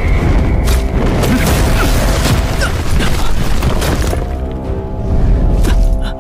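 Battle sound effects: a deep, rumbling boom with crashing hits as a magic blast strikes, over dramatic background music. About four seconds in, the music settles into held chords.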